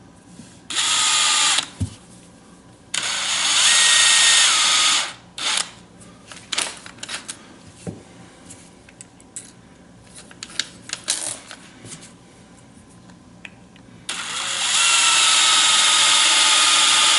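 A small drill spinning a turnbuckle to thread plastic ball cups onto it. It runs in three whining bursts: a short one about a second in, a longer one a few seconds in, and a longest one near the end. Between the bursts there are light clicks of handling the parts.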